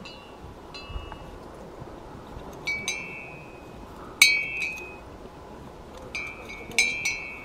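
Cylindrical metal bells hung on horses' necks, ringing at uneven intervals: short struck clinks with a brief ring, the loudest about four seconds in and several quick ones near the end.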